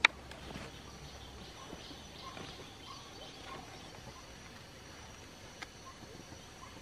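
Quiet rice-paddy ambience: a faint steady insect whine and a few soft bird chirps, after a single sharp click right at the start.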